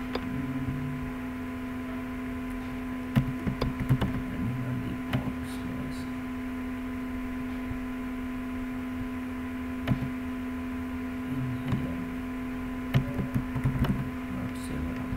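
A steady electrical hum with scattered clicks and taps of a computer keyboard and mouse.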